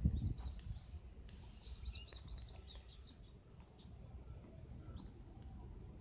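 Small bird chirping: two short high notes at the start, then a quick run of about six about two seconds in, with fainter calls after. A low rumble runs underneath, with a bump at the very start.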